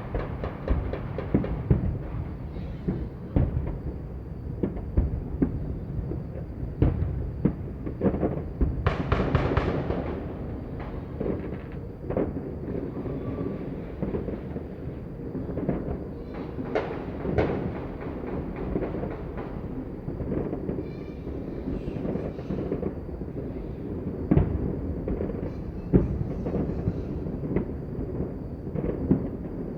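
Fireworks and firecrackers going off all around at once: a constant rumble of booms with frequent sharp bangs, and a longer crackling burst about nine seconds in.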